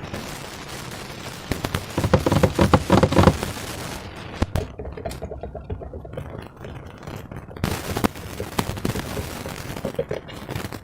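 Slime being squeezed and worked by hand: wet squelching with dense runs of small clicks and crackles as trapped air bubbles pop, loudest about two to three seconds in.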